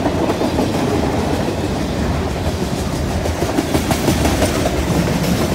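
Freight train's tank cars and boxcars rolling past close by, steel wheels clacking on the rails over a steady rumble.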